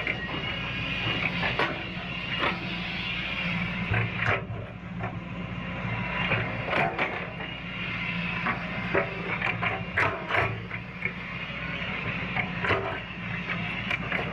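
Caterpillar excavator's diesel engine running steadily while digging, with frequent sharp knocks and clanks.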